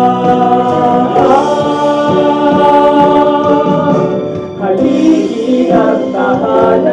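Musical-theatre song: a group of singers holds a long sung line over instrumental backing. About four and a half seconds in the chord breaks off and a solo male voice takes up the next line.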